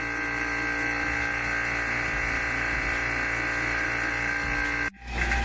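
Electric vacuum pump running steadily as it evacuates a vacuum chamber, a constant hum of many tones. The sound drops out abruptly near the end and comes back a moment later.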